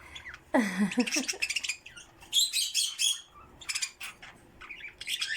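Several small pet birds chirping and squawking in short, high, overlapping calls, in bursts with brief gaps between them.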